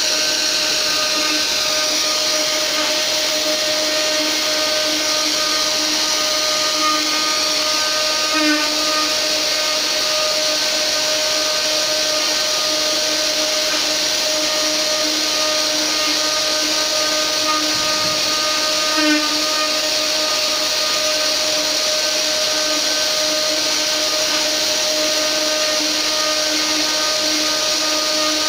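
A mini CNC router's spindle is running steadily with a whine while its bit mills a relief into a wooden board. A brief warble comes about every ten seconds.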